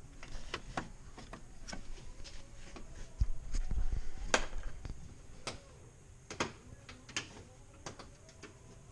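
Irregular sharp clicks and light knocks of a flathead screwdriver prying plastic push clips out of a Lexus LX570's front grille, with a heavier low thumping stretch about three to five seconds in.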